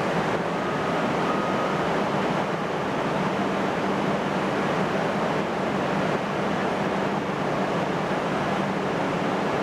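Steady, even rushing noise of a Tohoku Shinkansen train running, with a faint low hum under it.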